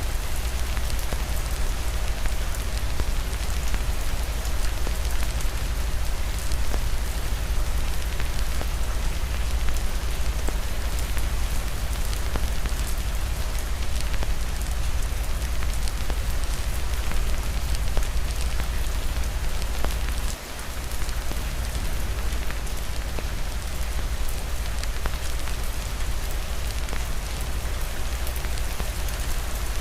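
Steady heavy rain with a low rumble underneath and many small sharp ticks scattered through it, likely fireplace crackles mixed into the rain. The sound dips briefly about twenty seconds in.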